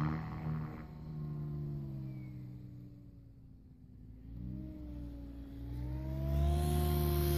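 Electric Align T-Rex 700E DFC RC helicopter in flight: the steady drone of its rotor and motor, a hum whose pitch bends up and down. It fades about halfway through and grows louder again near the end.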